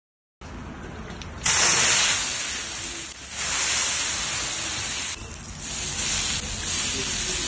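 Water sprinkled onto hot iron dosa griddles sizzling and hissing off as steam, in repeated surges that ease off briefly twice. It starts about half a second in after a moment of silence.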